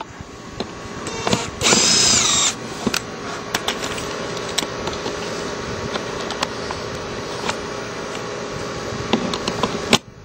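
Cordless drill driving a screw into a pop-in electrical box with one short burst, its motor whine rising and falling about two seconds in. Scattered clicks and knocks of handling follow.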